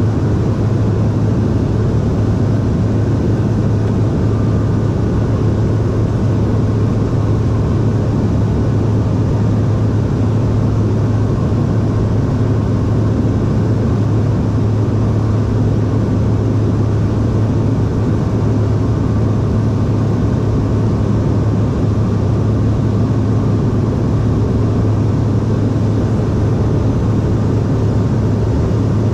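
Steady cabin noise of a CRJ-700 jet in flight: a constant low drone from its rear-mounted turbofan engines over an even rush of airflow, unchanging throughout.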